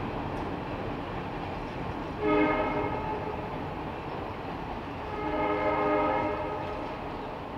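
Steam chime whistle of scrapped Nickel Plate Road 760, fitted to NKP 765, sounding two blasts: a short, sharp-starting one about two seconds in and a longer one that swells up and fades away a few seconds later. Beneath them, the steady rumble of passenger cars rolling over a steel girder bridge.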